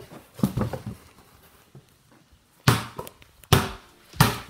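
A basketball bounced on a hard floor, three sharp bounces about three-quarters of a second apart in the second half, like the start of a dribble.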